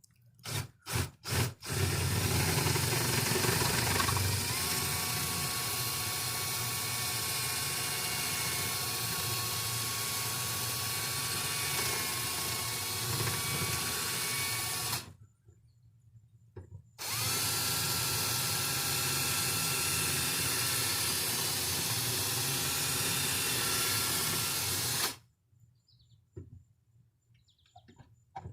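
Electric drill with a 1/4-inch bit drilling out the rivet that holds a car door handle, to pop off the rivet's head. A few short trigger blips come first. The drill then runs steadily for about thirteen seconds with a whine that rises as the motor comes up to speed, stops briefly, and runs again for about eight seconds.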